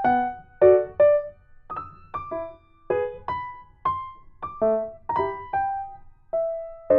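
Background music: a gentle electric piano melody, notes struck about twice a second and each left to ring and fade.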